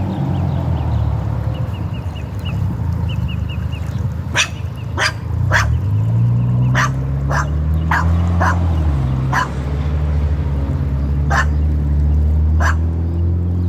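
A dog barking about a dozen times in short, separate barks, starting about four seconds in, over a steady low hum that shifts in pitch.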